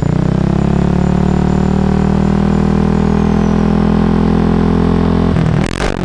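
Yamaha NMAX 2020 scooter's single-cylinder four-stroke engine idling steadily through a new Daytona GP-Taper Slash aftermarket exhaust. There is a short noisy disturbance near the end.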